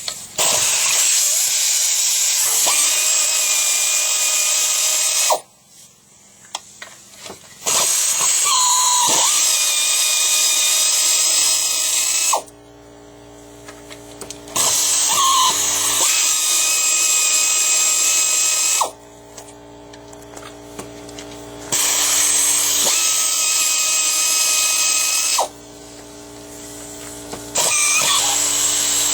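Handheld power tool running in five bursts of about four to five seconds each, with short pauses between them. Each burst starts with a brief rise in pitch and then holds a steady whine.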